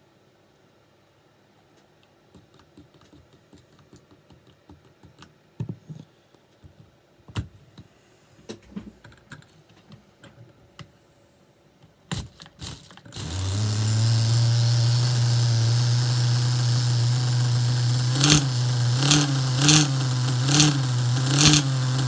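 Scattered clicks and knocks of handling, then about 13 seconds in a Kyosho GX-12 nitro RC engine starts and runs at a steady idle, with several short throttle blips in the last few seconds.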